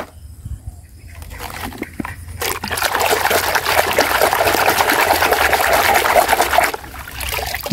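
A brush scrubbing a plastic toy in a basin of muddy, soapy water, with sloshing and splashing. The scrubbing starts about two and a half seconds in as a busy wet rustle and stops shortly before the end.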